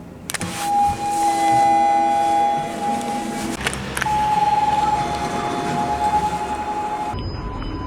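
Elevator signal tones: two long, steady electronic tones of about three seconds each, the second slightly higher in pitch, with sharp clicks before and between them.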